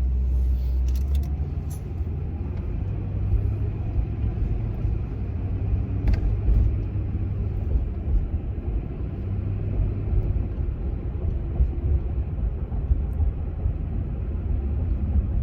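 Steady low rumble of a car on the road, heard from inside the cabin.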